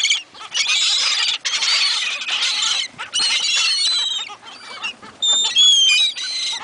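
A flock of seagulls calling loudly over one another, with many high, sharp calls overlapping and a few short lulls.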